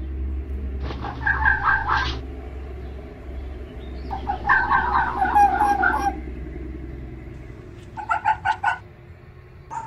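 Fox calling in three bursts of rapid, stuttering repeated notes: about a second long, then a longer two-second run, then a short one near the end, over a steady low rumble.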